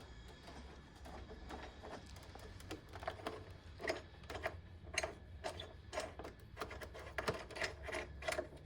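Ratchet wrench clicking in short irregular runs with light metallic knocks, as the race hook mounting bolts are tightened.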